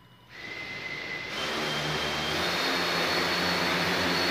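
Hexacopter's electric motors and propellers spinning up: a whirring drone that steps louder about a third of a second in and again about a second and a quarter in, then keeps building as a steady buzz with a high whine on top.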